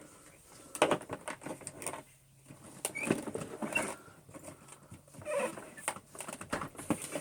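Irregular clicks, knocks and rustling of things being handled, in short clusters with brief pauses; no vacuum motor running.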